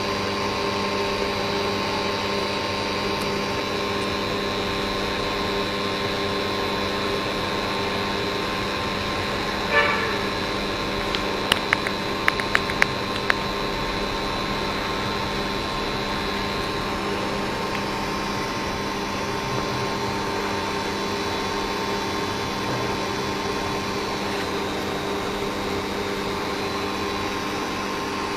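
Induction cooker running at 2000 W under a stainless steel pot of water: a steady hum and whine with its cooling fan. A short burst about ten seconds in, then a few sharp clicks.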